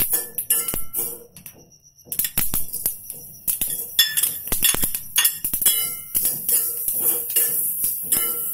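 Metal spatula scraping and clinking against a steel kadhai while stirring sesame seeds as they dry-roast, with the seeds crackling. The clatter drops off briefly about a second and a half in, then resumes.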